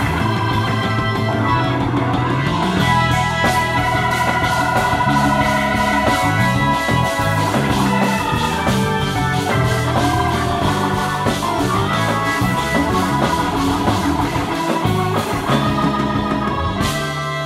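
Live jazz-funk band playing: an organ-toned keyboard solo over a steady drum beat, percussion and a moving electric bass line.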